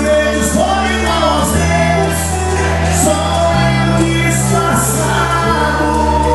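Live forró band music with a woman singing lead through a microphone, over held bass notes that change every couple of seconds and cymbal hits.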